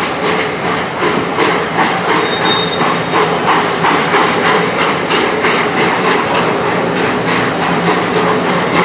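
Wheels of a passing rake of passenger coaches clicking over rail joints, a quick steady run of clicks over the rumble of the carriages. A brief high squeal sounds about two and a half seconds in.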